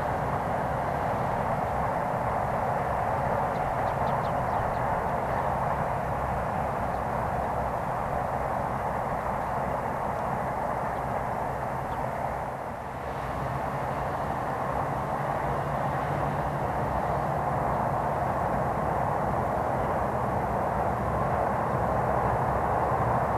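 Electric trains on the Sobu Line rumbling steadily across a long steel truss railway bridge, heard as a continuous distant roar. The sound dips briefly about thirteen seconds in and swells a little toward the end.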